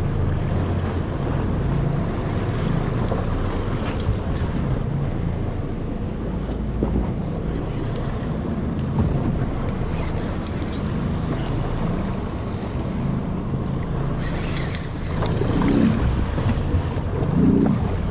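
Boat motor running with a steady low hum, under wind buffeting the microphone and the wash of water against the hull.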